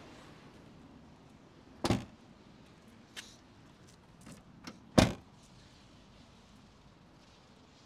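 Fittings of a Dongfeng M5 van being opened and shut by hand: two solid clunks about three seconds apart, with a few lighter clicks between them.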